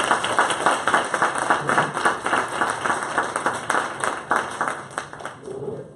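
Audience applauding, a dense run of hand claps that thins out and dies away near the end.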